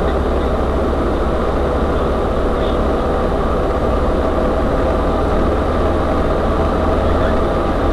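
UAZ-3909 'Bukhanka' 4x4 van's engine and drivetrain running steadily under way, a constant low drone.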